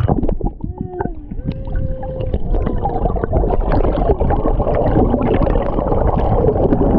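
Water churning and gurgling around a GoPro camera held in the water, heard muffled, with steady rumble and dense crackle. There are a few short gliding tones in the first two seconds.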